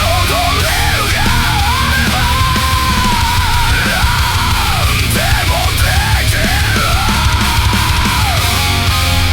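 AI-generated thrash metal: fast, heavy drums and bass under a lead line that keeps sliding up and down in pitch.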